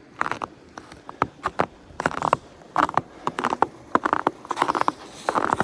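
Footsteps crunching on crusted snow and ice, an irregular run of sharp crunches starting suddenly and continuing in uneven clusters.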